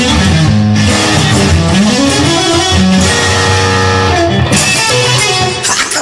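Instrumental passage of a rock song led by electric guitar, with sustained notes over a low bass line and no singing.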